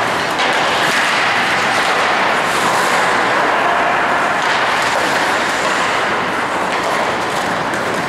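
Ice hockey play heard in a rink: a steady hiss of skate blades scraping the ice, with a few faint clicks of sticks on the puck.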